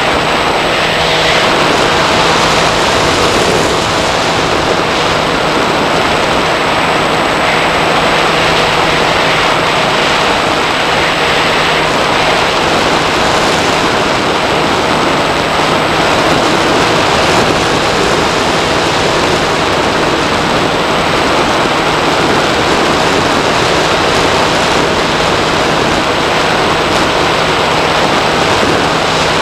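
Steady rush of airflow over the onboard camera of a Bixler 2 RC plane in flight, with the faint, even hum of its brushless electric motor and propeller underneath.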